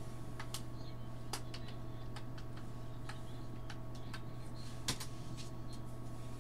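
Computer keyboard keys clicking in an irregular run as a password is typed, with one louder keystroke about five seconds in. A steady low hum sits underneath.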